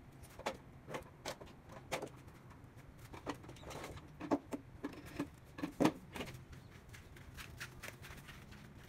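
Footsteps in sandals and the knocking of handled cleaning tools: irregular clicks and knocks, a few a second, with the loudest thumps between about four and six seconds in.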